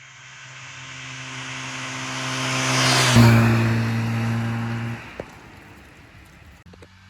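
Trabant 601's two-stroke twin engine, fitted with a Mikuni TMX27 carburettor, running hard. It grows louder over the first three seconds, holds loud and steady for about two seconds, then falls away sharply about five seconds in.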